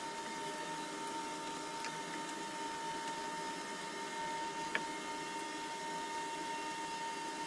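Steady workshop background hiss with a thin, high, constant whine, and a single light click about two-thirds of the way through.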